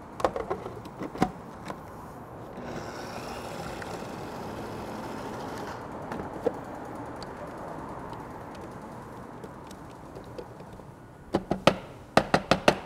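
Food processor running steadily, blending minced garlic, salt and lemon juice into toum. A few clicks and knocks come just before it starts, and a quick run of sharp clicks comes near the end after the motor stops.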